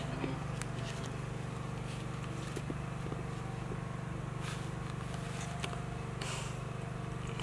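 A steady low machine hum, with a few soft rustles and light pats from hands moving over the baby monkeys and the bedding, the longest rustle a little after six seconds in.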